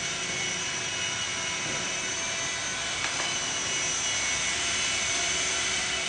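Mini single-rotor, fixed-pitch RC helicopter flying, its small electric motors and rotor giving a steady, high multi-toned whine. There is one brief click about three seconds in.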